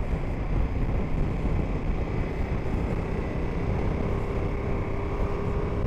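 Motorcycle cruising at steady speed, its engine and the road rumble mixed with wind buffeting on the bike-mounted camera's microphone. A faint steady tone comes in about halfway through and rises slightly.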